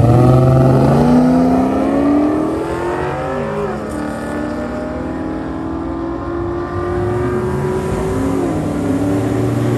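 Drag racing car launching hard and accelerating flat out down the strip, its engine pitch climbing steadily, with two upshifts where the pitch drops: about three and a half seconds in and again near the end.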